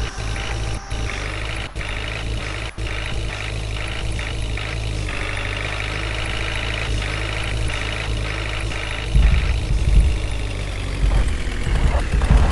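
Heavy machinery diesel engine running steadily. It grows louder and rougher in its low rumble from about nine seconds in.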